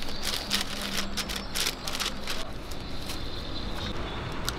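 Short scrapes and rustles from handling a paper-wrapped crepe and a metal ice cream scoop, bunched in the first half, over steady street background noise.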